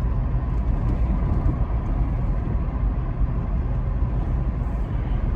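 Steady low rumble of a moving vehicle, heard between spoken phrases.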